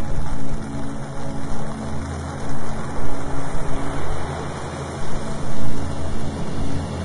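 Steady rushing noise over low held droning tones, its loudness swelling and dipping irregularly every second or so.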